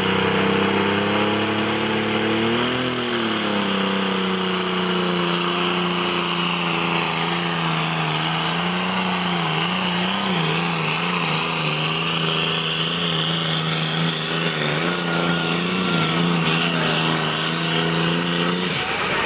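Modified John Deere pulling tractor's engine running flat out under heavy load as it drags a weight-transfer sled. The pitch holds high and steady, with a brief dip about three seconds in and some wavering near the middle.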